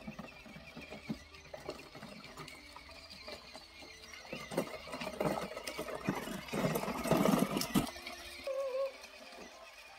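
Small electric motor of a child's ride-on toy car running as it drives over a rough dirt road, with clicks and rattles from the wheels and body. A short wavering animal squeal comes near the end.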